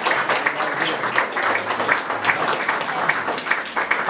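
Small audience applauding: many hands clapping steadily.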